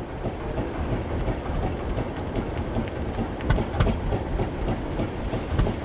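Steady low rumble of a fishing boat's engine running, with water and hull noise and a few short knocks about halfway through.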